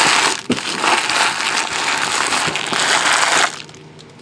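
Loud crinkling of plastic card-pack wrappers being gathered up by hand, with a few sharp crackles, stopping about three and a half seconds in.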